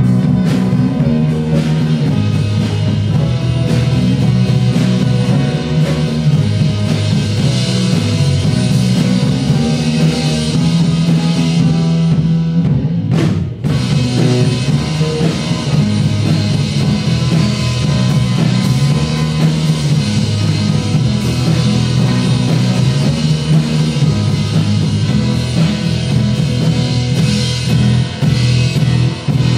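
Live rock band playing an original instrumental passage: guitars over a drum kit with a steady beat. About halfway through the band stops for a split second, then carries on.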